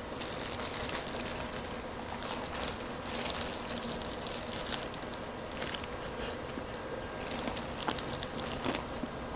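Hands in disposable plastic gloves tearing fried chicken apart: the plastic crinkles and the meat and skin tear with crackling, in irregular bursts of sharp clicks.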